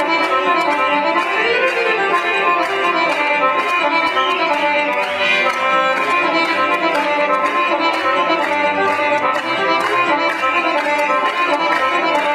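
Lively instrumental Serbian folk music from Šumadija, led by accordion and violin, played for a kolo dance with a steady, even beat.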